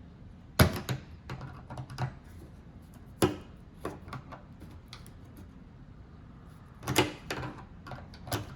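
Irregular sharp clicks and knocks of hand tools and metal parts as the car's replacement antenna is tightened into its mount, in clusters with short pauses.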